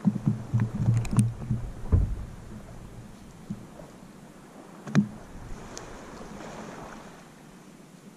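Wind and small waves on a beach, with a run of low thumps in the first two seconds and one sharp click about five seconds in.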